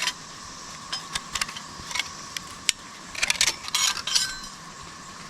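Hard objects clicking and rattling as camping gear is handled, with scattered sharp clicks and a denser clatter about three to four seconds in.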